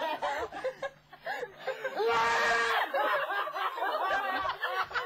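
Group of people laughing and chattering, with one long, high-pitched held cry about two seconds in.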